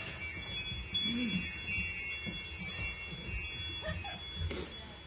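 High, tinkling chimes, shaken or struck again several times so that their ringing overlaps.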